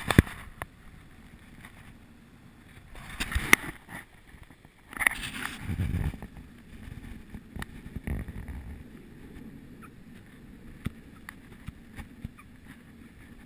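Wind buffeting the camera microphone in gusts, with scattered clicks and knocks from the camera being handled. The loudest gusts come about three seconds in and again around five to seven seconds in.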